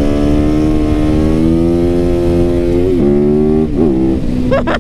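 Yamaha YZ450FX single-cylinder four-stroke engine pulling under steady throttle, its note slowly rising. It dips briefly and recovers twice, about three and four seconds in, then drops as the throttle eases near the end.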